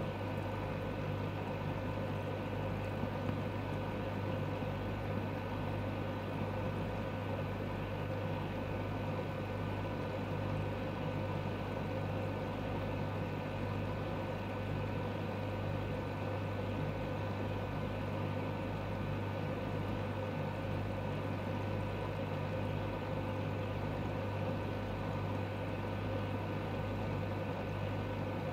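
Steady low electrical hum with a faint hiss.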